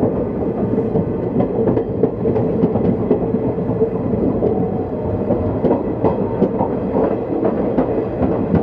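Indian Railways ICF passenger coach rolling along, with a steady rumble and irregular clicks and clatter from the wheels over rail joints and points as the train pulls out and gathers speed.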